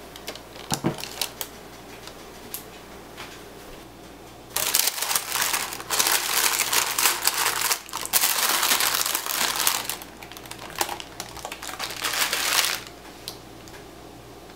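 Parchment paper crinkling and dried beans rattling as the parchment full of baking beans used as pie weights is folded up and lifted out of a blind-baked pie crust. The crinkling comes in several loud stretches from about four seconds in until near the end, after a few light clicks at the start.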